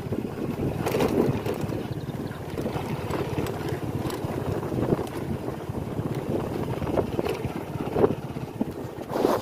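Motorcycle engine running steadily at low speed, with wind buffeting the microphone in a few brief gusts.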